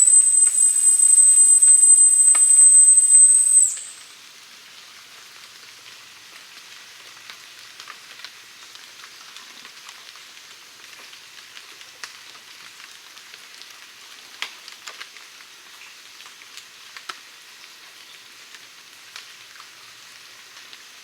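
A whistle blown in one long, steady, very high note for almost four seconds, then cut off. Rain patters on the vegetation for the rest, with scattered drips.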